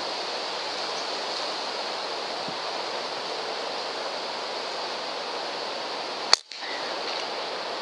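Steady wind noise on the microphone, then about six and a half seconds in a single sharp crack of a .22 PCP air rifle (Umarex Gauntlet) firing. The sound cuts out for a moment right after the shot.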